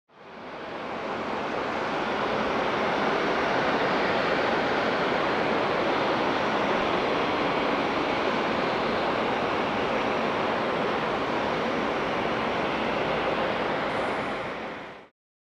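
Steady rushing roar of distant airliner jet engines at an airport, from aircraft taxiing on the apron. It fades in at the start and fades out near the end.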